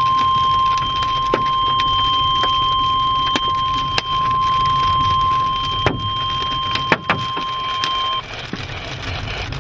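NOAA Weather Radio warning alarm: one steady, high-pitched attention tone that cuts off suddenly about eight seconds in. It signals that a severe weather warning is about to be broadcast. Several sharp knocks of hail striking the vehicle sound over it, above a low rumble.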